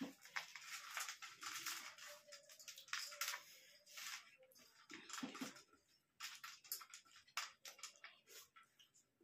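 Faint, irregular wet clicks and crackles of fingers mixing rice on stainless steel plates, with some chewing, denser in the first few seconds and sparser later.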